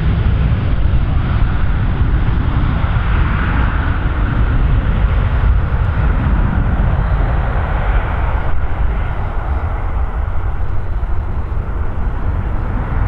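Airliner engines running loud: a steady deep rumble with a rushing hiss that eases off in the second half.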